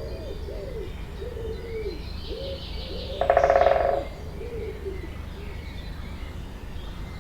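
Forest birdsong: a run of low, arched cooing notes repeats about twice a second, with faint high chirps over it. About three seconds in, a loud, harsh, rasping call lasts just under a second.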